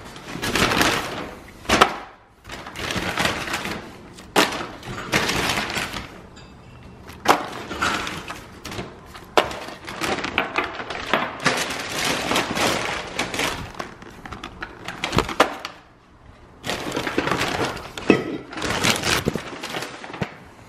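Paper takeaway bag rustling and crinkling as it is handled and emptied, with sharp knocks as cardboard nugget boxes and plastic sauce tubs are set down on a hard countertop.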